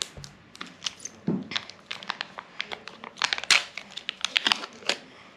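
Kinder Joy foil and plastic packaging being opened by hand: a run of sharp crinkling crackles and clicks with some tearing, thickest a little past the middle.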